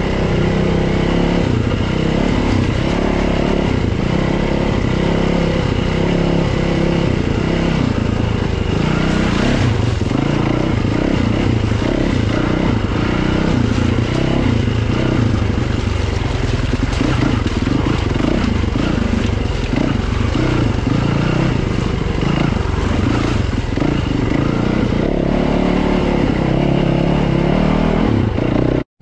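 Dirt bike engine running under a varying throttle while the bike is ridden, its note rising and falling. The sound breaks off briefly right at the end.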